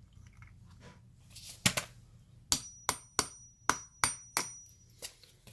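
Hammer tapping on metal, about seven sharp strikes spread over a few seconds, some with a brief high metallic ring, knocking the arbor lock out of a Stadea SWP101K wet polisher.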